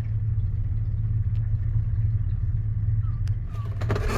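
A boat engine running steadily at low speed, with a low, even hum. A few short clicks and rattles come in near the end.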